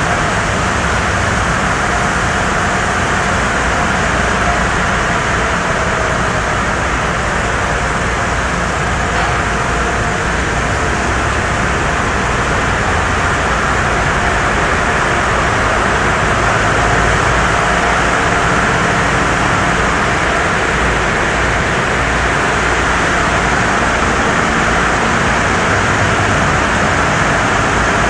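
Automatic tunnel car wash running: a steady hiss of spraying water and chemical over the rumble of its pumps and motors, with a faint steady whine in the first several seconds.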